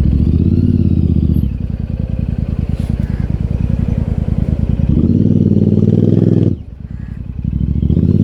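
Royal Enfield Super Meteor 650's 648 cc parallel-twin engine running through an AEW TE 202 aftermarket exhaust, with a pulsing exhaust note. It is louder for the first second and a half, settles lower, swells loud again for about a second and a half, drops off sharply, then rises briefly near the end.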